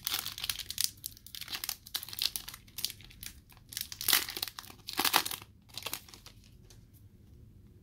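Foil wrapper of a Pokémon card booster pack crinkling as it is torn open and the cards are pulled out. The crinkling stops about six seconds in.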